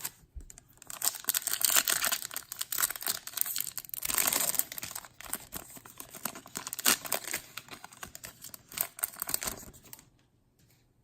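Foil wrapper of a 2018 Topps Chrome baseball card pack being torn open and crinkled by hand: a dense crackling that starts about a second in and stops abruptly about a second before the end.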